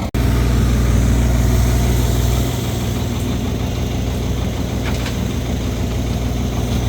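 An engine running steadily at an even speed, with a strong low hum; the sound starts abruptly just after a brief drop-out.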